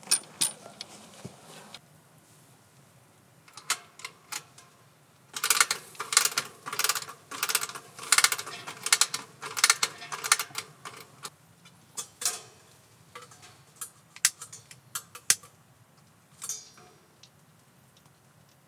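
A run of sharp clicks and taps, like small hard objects being handled. A few scattered knocks at first, a quick rhythmic run of several taps a second in the middle, and scattered clicks again towards the end.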